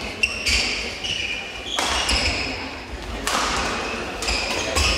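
Badminton rally: a racket hits the shuttlecock with a sharp crack about every second and a half, four times, and court shoes squeak on the sports-hall floor between the hits.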